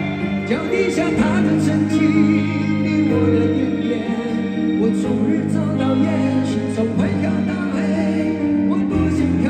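Live band performance of a rock ballad: electric and acoustic guitars over a full band, with singing.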